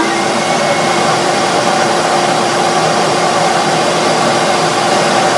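Shop-Vac 12-gallon, 5.0 peak HP wet/dry vacuum running steadily at full speed: a rush of air over a steady motor hum. It reads about 84 dB(A) on a sound level meter held close, pretty loud.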